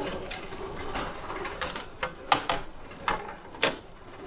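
Plastic cafeteria trays clacking against one another as one is pulled from a stack, about six sharp knocks in the second half, two of them louder than the rest.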